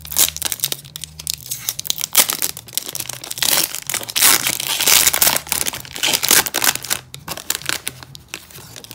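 Foil trading-card pack, a Panini National Silver Pack, being torn open by hand: irregular ripping and crinkling of the foil wrapper, loudest in the middle, easing to quieter rustling near the end as the cards are slid out.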